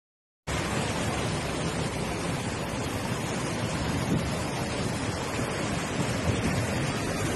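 Steady rushing noise of wind on a phone microphone, starting abruptly about half a second in.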